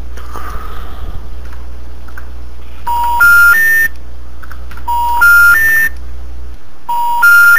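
Telephone network intercept tone heard down the phone line: three short beeps stepping up in pitch, repeated three times about two seconds apart from about three seconds in, over a steady low line hum. It is the signal that the call has not gone through or is not being answered.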